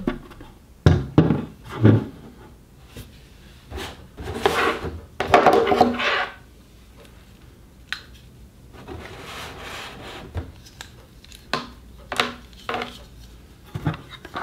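Hands handling a round plastic wake-up lamp on a table: a few heavy knocks about a second in as it is set down, then stretches of scraping and rubbing against the plastic and the tabletop, with scattered sharp clicks and taps.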